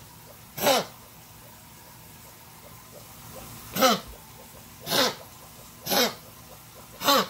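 An animal coughing: five short coughs, each with a quickly falling pitch. One comes a little under a second in, then after a gap four more follow about a second apart.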